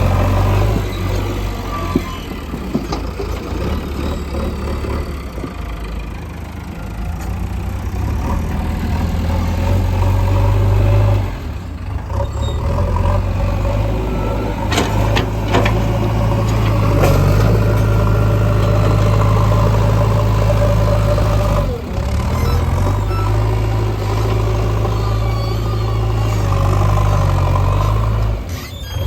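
Diesel engine of heavy machinery running steadily, a backhoe loader working alongside a tractor, with the drone growing louder partway through. Three brief sudden drops in the sound break it up.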